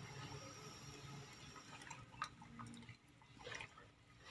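A Rottweiler eating kibble and carrots from a plastic bowl: faint, wet chewing and mouth clicks, with one sharper click about two seconds in.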